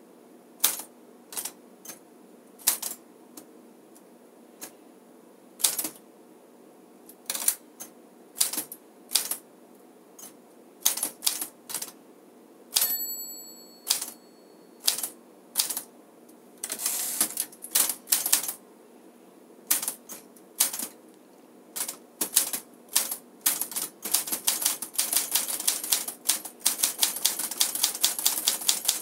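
A 1956 Smith-Corona Silent Super manual typewriter being typed on. The keys strike at an uneven pace, sparse at first and quickening into fast, close-packed typing near the end. About halfway through there is a single ring from the margin bell.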